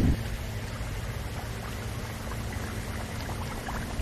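Steady rain: an even hiss of falling water with faint scattered drop ticks and a low steady hum underneath.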